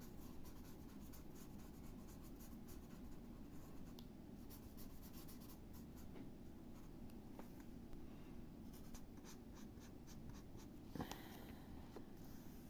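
Faint scratching of a pen drawing on paper, with scattered light ticks and one slightly louder tap about eleven seconds in.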